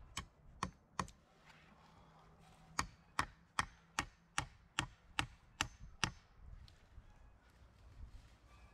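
Sharp blows of a tool striking wood: three strikes, then after a short pause a fast, even run of about nine more at roughly two and a half a second.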